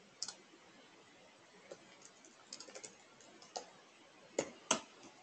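Computer keyboard typing: irregular, scattered keystrokes, then two louder key strikes close together near the end.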